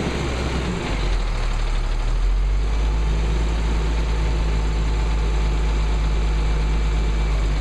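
Caterpillar 3126 7.2-litre inline-six diesel of a yard spotter truck running. About a second in it drops in pitch from a faster speed and then idles steadily.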